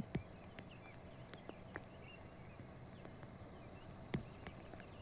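Faint irregular clicks and knocks over a low steady hum, with two louder thumps, one about a quarter second in and one about four seconds in.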